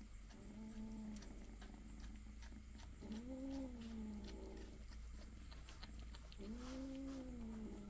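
Kittens growling over a piece of raw meat they are fighting for: three low, drawn-out growling yowls, each about a second long and rising then falling in pitch.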